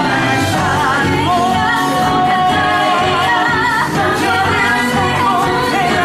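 Musical-theatre song: singing voices with vibrato over a full band accompaniment.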